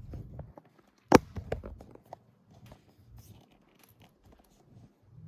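Hand-tool work on a motorcycle's plastic fairing: a sharp knock about a second in, then scattered small clicks and ticks as Torx screws behind the windshield are worked loose with a stubby screwdriver.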